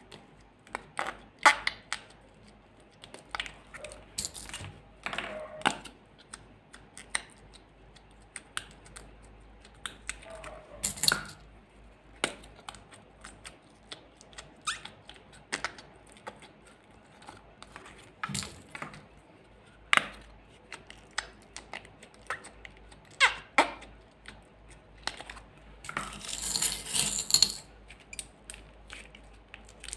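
Fingers working glossy slime in a small plastic cup: irregular short sticky squelches and squeaks. Near the end comes a longer, louder wet squish as the slime is squeezed in the hand.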